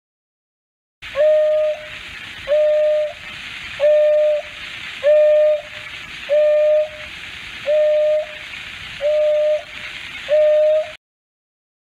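African wild dog (painted wolf) giving its hoo contact call: eight flat, whistle-like hoots about every 1.3 seconds over a steady hiss of recording noise. This long-distance call is used to regroup a scattered pack.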